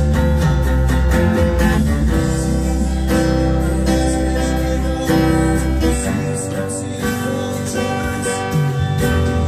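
Acoustic guitar strummed in a steady rhythm, playing sustained chords.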